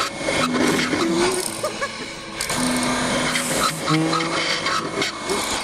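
Horizontal slot mortiser running, its electric motor driving a spinning bit that mills a slanted mortise into a wooden rail as the workpiece is fed in and moved along.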